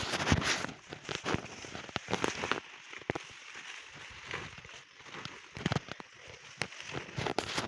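Grass being cut by hand among maize plants: irregular rustling and crackling of leaves and stalks, with short sharp snaps and clicks.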